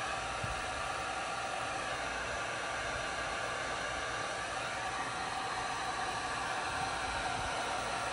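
Handheld electric heat gun blowing steadily, an even rushing hiss with a faint fan whine, as hot air is played over wet epoxy and alcohol ink on bamboo spoons.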